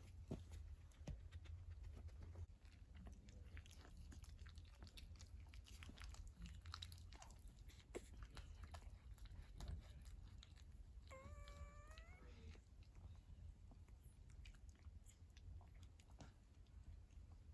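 Near silence with faint soft clicks, and about eleven seconds in a single brief high whimper from a 12-day-old wire fox terrier puppy, lasting about a second and rising at the end.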